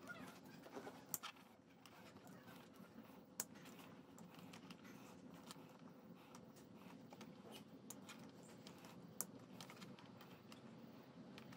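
Near silence with a faint steady hum, broken by a few faint, sharp clicks and light rustling from small wire cutters and electrical wires being handled.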